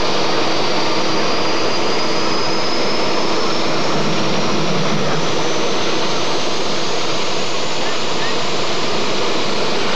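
Modified pulling tractor's engines running loud and steady, with a high whine slowly rising in pitch throughout. A deeper rumble swells about four to five seconds in, as a flame bursts from the engine.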